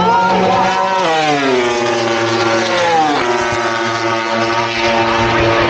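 MotoGP racing motorcycle engine at speed. Its note falls twice over the first three seconds, then holds steady at a lower pitch.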